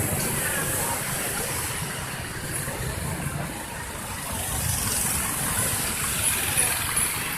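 Bus engine running with a low rumble, easing a few seconds in and building again.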